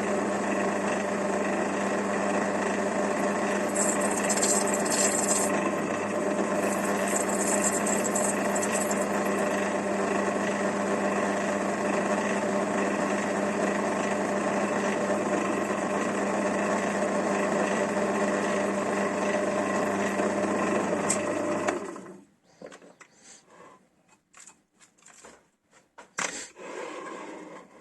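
Electric power tool motor running steadily with an even hum, with two short bursts of high hiss about 4 and 7 seconds in; it switches off abruptly about 22 seconds in, leaving a few light handling clicks.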